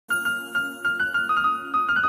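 Music: a light, tinkling melody of quick struck keyboard notes, about three or four a second.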